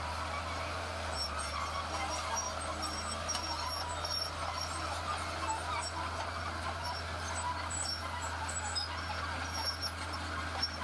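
Heavy diesel earthmoving machinery running steadily, a constant low engine hum with a busier mid-range noise over it and short faint high chirps scattered through.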